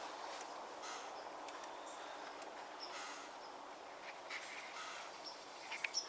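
Faint outdoor ambience: a steady hiss of background noise with short, high bird chirps scattered through it, and a few sharp snaps or crunches, like footsteps in brush, near the end.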